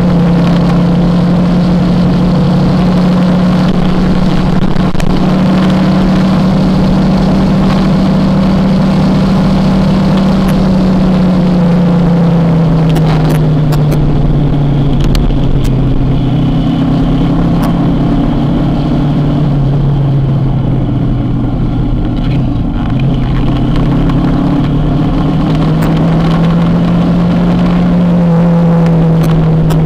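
Kawasaki motorcycle engine running under way. Its note drops steadily from about a third of the way in as the engine slows, then rises again near the end.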